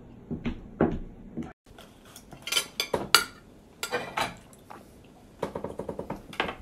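Dishes and cutlery clinking and knocking in a kitchen: scattered sharp knocks, and a quick run of light taps near the end.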